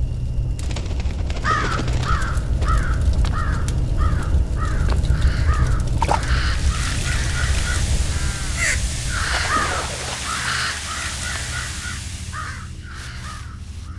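A flock of crows cawing over and over, at about two calls a second and busier after the middle, over a low rumble that drops away about nine and a half seconds in.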